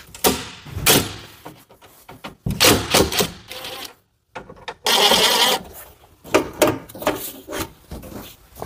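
Irregular metal clanks and knocks with short bursts of machine noise from heavy equipment being moved and set in place, broken by a brief silent gap just after four seconds.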